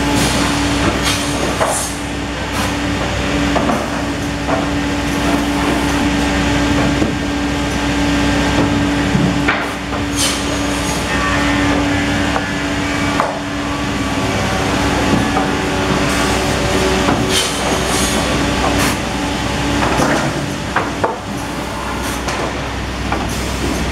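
Automatic crosscut saw line and its infeed chain conveyor running, with a steady machine hum that weakens about halfway through. Solid-wood boards knock and clatter against the steel conveyor frame as they are loaded.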